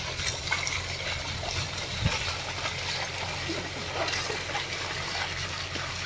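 Water sloshing and splashing as bullocks' hooves and a wooden plough move through the flooded mud of a paddy field, over a steady hiss and low rumble, with a small knock about two seconds in.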